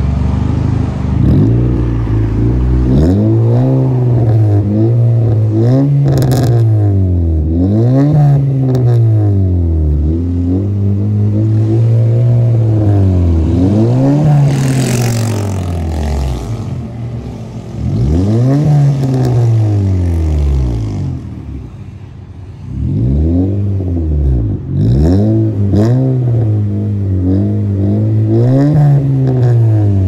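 Honda City's four-cylinder engine revved again and again through a free-flow muffler, the exhaust note rising and falling in quick blips. It eases off briefly about two-thirds of the way through, then revs again.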